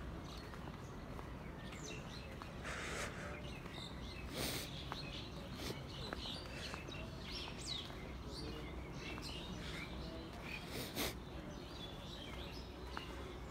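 Birds chirping and calling in many short, scattered notes, over a steady low background hum. A few brief louder scuffs or thumps come about four seconds in and again near eleven seconds.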